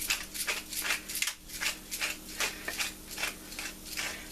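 Pepper grinder being twisted to crack black pepper, a quick run of short, gritty crunches at about three a second.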